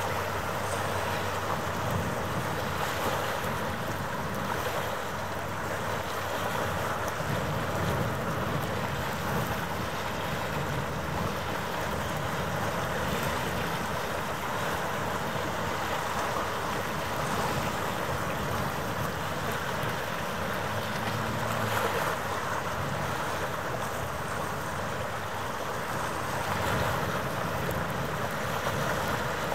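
Steady wind buffeting the microphone over an even rush of harbour water, with a faint steady hum underneath.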